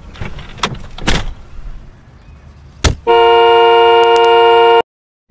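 A few soft knocks, then a single sharp thump, then a car horn blaring steadily for nearly two seconds before it cuts off abruptly: the horn is pressed by the driver's head as he slumps onto the steering wheel.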